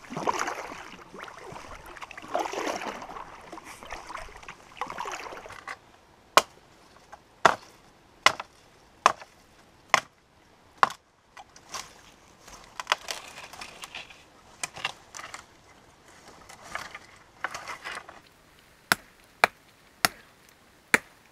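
Axe chopping a dry dead stick of firewood: sharp, cracking blows about once a second, some coming in quick runs near the end. Rustling fills the first several seconds before the chopping starts.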